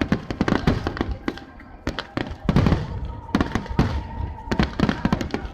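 Aerial firework shells bursting in rapid succession, a dense run of booms and crackles from a fireworks finale barrage, with a brief thinner spell about two seconds in.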